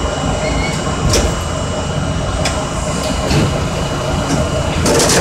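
R32 subway car standing at a station with its equipment running: a steady low hum and rumble, a few light clicks, and a short burst of hiss near the end.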